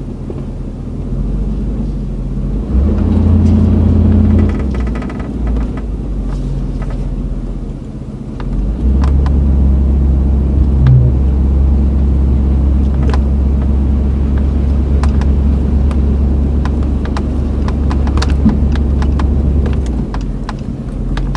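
Vehicle engine running under load while moving a horse trailer into position, a deep rumble that swells about three seconds in and again from about nine seconds until near the end, with light rattles and clicks over it.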